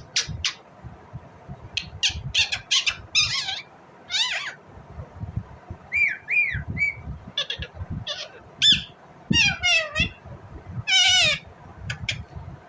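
Indian ringneck parakeet calling in a rapid series of sharp, high-pitched squawks and chirps, some broken into fast trills and some sliding down in pitch. The longest and loudest call comes near the end.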